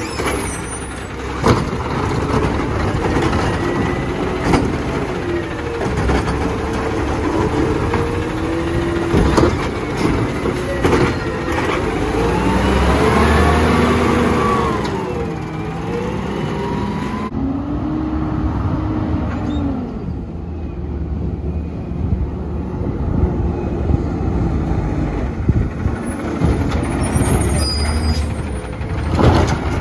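McNeilus automated side-loader garbage truck working its arm: the engine revs up and down with a whine that rises and falls as the hydraulics lift and dump carts, with scattered clanks.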